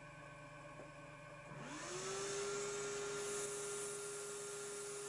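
Mini wood lathe motor spinning up about a second and a half in, its whine rising in pitch and settling to a steady tone. A strip of 80-grit sandpaper hisses against the spinning cork grip as the lathe runs.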